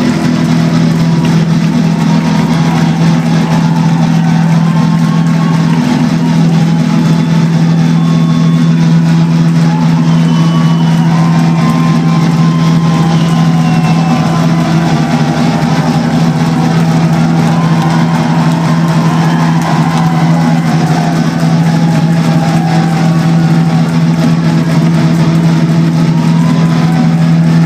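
Rock-concert crowd cheering and shouting, many voices at once, over a steady low drone from the stage that holds the same pitch throughout.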